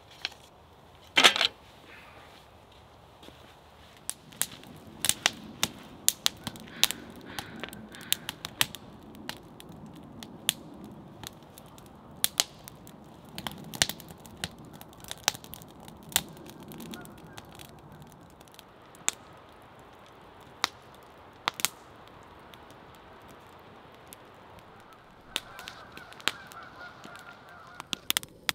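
Firewood burning in a stainless-steel fire pit, crackling with sharp, irregular pops throughout; one louder crack comes about a second in.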